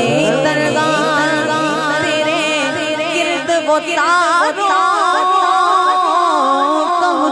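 Urdu devotional naat music: a melodic line with a wavering, ornamented pitch and no words, over a low accompaniment that pulses evenly for the first few seconds.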